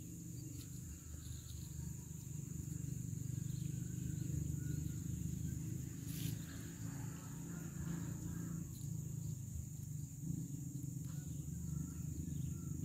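Steady high-pitched drone of insects over a low steady hum, with a few faint clicks and rustles.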